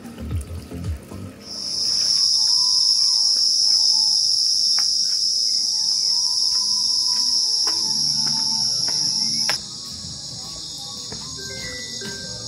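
Insects trilling in a continuous high-pitched drone that starts about a second and a half in and drops abruptly to a quieter level about nine and a half seconds in.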